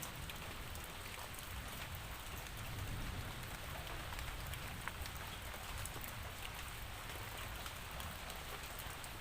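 Steady rainfall, an even hiss with many small drops ticking on a surface and a low rumble underneath.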